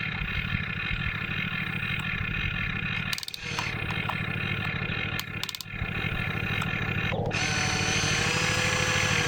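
Radio-controlled construction models running: a steady mechanical whine and rumble of small motors, broken by two short drops about three and five and a half seconds in, with a steady whining tone in the last couple of seconds.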